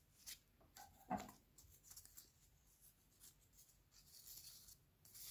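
Faint rustling and light ticks of cardboard strips, cut from toilet-paper and paper-towel rolls, being handled and slotted together, with one louder tick about a second in and a short scratchy slide near the end.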